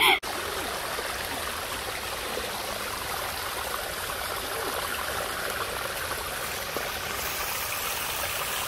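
Shallow mountain stream running over flat rocks and spilling down a small cascade: a steady, even rush of water.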